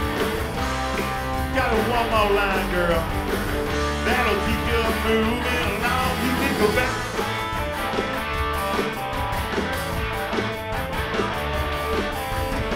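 Live rock band playing: male lead vocals over electric guitars, bass and drums. The singing stops about halfway through and the band plays on with the guitars to the fore.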